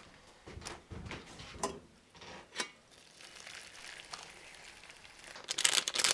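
Hot water poured from a kettle into a plastic food container over bok choy and noodles, a faint, steady stream, after some light handling knocks. Near the end comes a loud crackling rustle.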